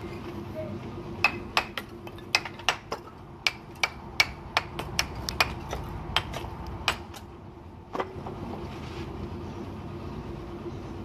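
Bricklayer's hammer striking a red clay brick held in the hand, chipping it to shape: a quick series of sharp knocks, about three a second, for around six seconds, then one last knock. A steady low hum runs underneath.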